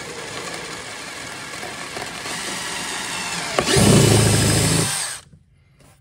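Cordless drill with a twist bit boring a hole through a kayak's plastic hull, the motor whirring steadily. Nearly four seconds in it gets much louder for about a second and a half, then stops abruptly.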